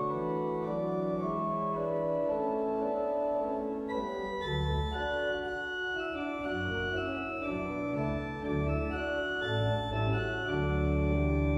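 Organ playing slow sustained chords. Deep bass notes come in about four seconds in, and a fuller chord with a steady bass is held near the end.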